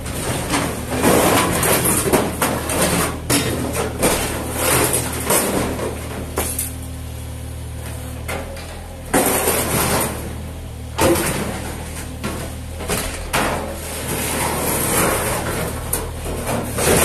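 Yanmar SV18 mini excavator at work: its diesel engine runs steadily underneath while the steel bucket scrapes and bangs into broken floor and rubble, with irregular crashes and clatters of debris, loudest in bursts about a second in, around nine and eleven seconds in, and near the end.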